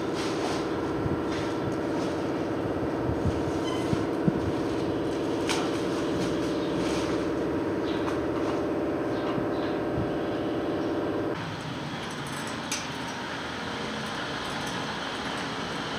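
A steady machine hum with scattered light metallic clinks and knocks from tools being worked on the truck's wheel and brake assembly. The hum cuts off abruptly about eleven seconds in, leaving quieter workshop noise with an occasional clink.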